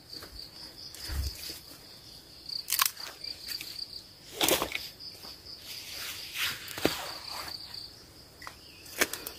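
Footsteps crunching through dry leaves and grass in irregular steps, the loudest about halfway through. A steady, high insect trill runs behind them.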